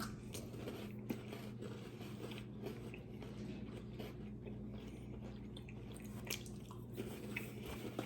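Faint chewing and crunching of Reese's peanut-butter-and-chocolate-dipped animal crackers, a few soft crunches scattered through, over a steady low electrical hum.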